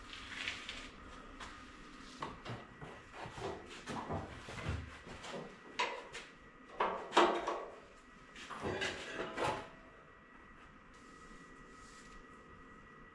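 Irregular clunks, knocks and scrapes of workshop handling, the loudest about seven seconds in, as pieces of sheet steel are moved and fitted. After about nine seconds they stop, leaving a faint steady hum.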